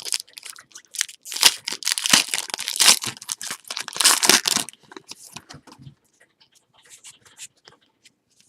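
Trading card pack wrapper torn open and crinkled, with a few seconds of dense rustling, then scattered light clicks and rustles that fade out.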